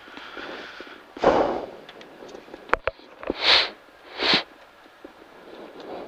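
Breaths caught close on a helmet intercom microphone: one breath about a second in, then two short, hissy breaths or sniffs near the middle, with a few small clicks.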